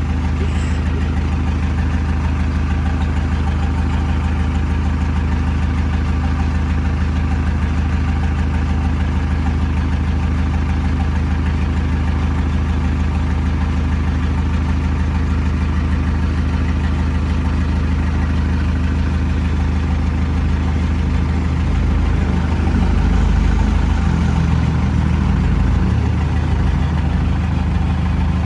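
A vehicle engine idling steadily, running a little louder and rougher for a few seconds about 22 seconds in.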